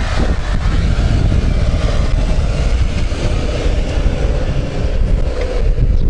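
Renault Duster 2.0's four-cylinder petrol engine running under load as the crossover climbs a steep dirt slope.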